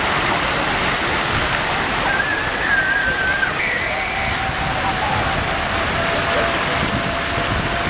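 Large fountain's jets spraying and falling into its pool: a steady rush and splash of water. People's voices mix in faintly.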